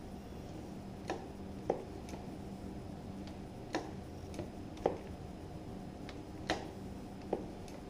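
About seven light, sharp clicks at uneven intervals from hand work on a motorcycle's front brake system while it is being bled, over a steady low hum.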